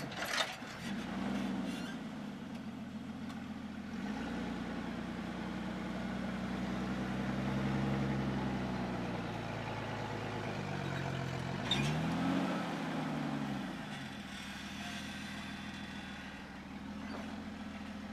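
Engine of a lifted 2003 Jeep Wrangler TJ working at crawling speed over rock ledges. It revs up and drops back several times, most sharply about twelve seconds in. A few sharp knocks sound near the start and another comes about twelve seconds in.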